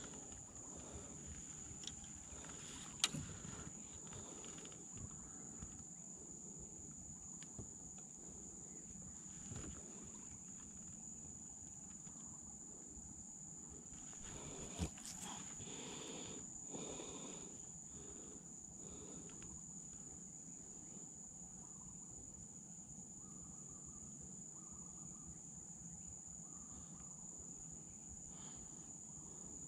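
Steady high-pitched drone of insects, with a few sharp knocks, the loudest about fifteen seconds in.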